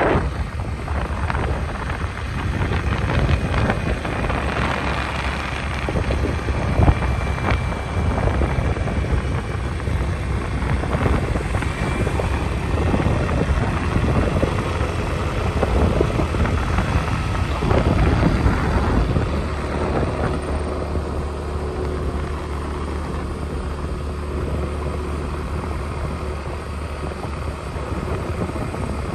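A car driving along a highway: a steady low rumble of tyres and engine with wind noise on the microphone, easing a little in the last third.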